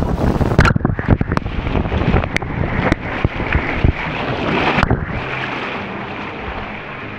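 Rushing water and wind buffeting the microphone on a ride down a racing water slide, with frequent knocks and bumps for the first five seconds or so; then the noise eases to a quieter, steady rush.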